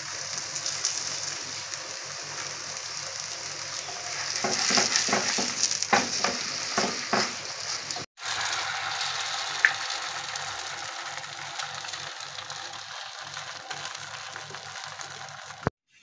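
Paratha frying on a hot tawa griddle: a steady sizzle, with a few knocks and scrapes about halfway through. The sizzle breaks off briefly about eight seconds in.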